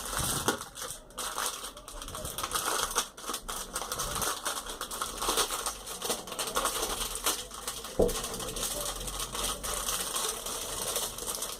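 A small plastic Wi-Fi router and its packaging being handled: irregular clicks, taps and rustling, with one sharper knock about eight seconds in.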